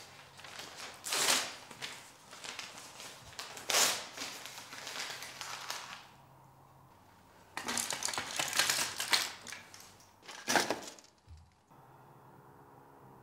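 A paper contract torn up by hand, ripped in several bursts: about a second in, near four seconds, a longer run of tearing around eight to nine seconds and a last rip near ten and a half seconds. Soft music comes in near the end.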